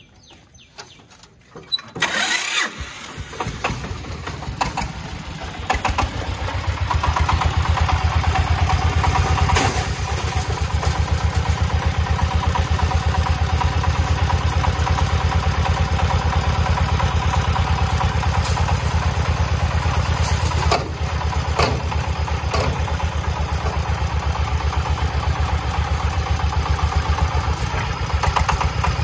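Three-wheeled công nông farm truck's single-cylinder diesel engine starting about two seconds in, then running with a fast, steady chug that gets louder a few seconds later, with a few sharp knocks over it.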